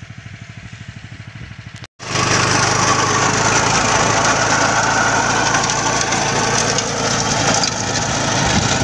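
Swaraj Code mini tractor's engine runs with an even rapid pulse. After a brief break about two seconds in, it works under load while the rear rotavator churns dry soil, a loud, steady clatter and hiss of earth and stones over the engine note.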